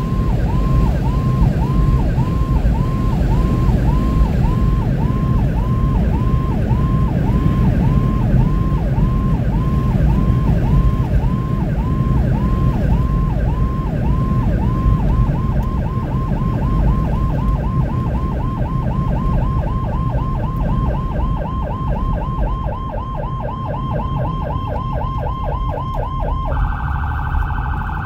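Fire department response vehicle's electronic siren sounding from inside the cab over engine and road noise. It runs a yelp of repeating rising-and-falling sweeps, a little under two a second, speeding to about three a second about halfway through. Near the end it switches to a rapid high warble.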